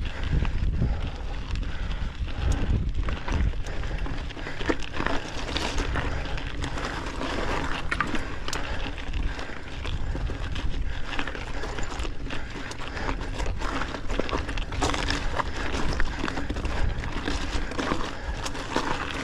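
Mountain bike grinding up a steep, rocky climb in its lowest gear: tyres crunching over loose rock and the bike rattling in steady short knocks and clicks, with wind rumbling on the camera microphone and the rider breathing hard from the effort.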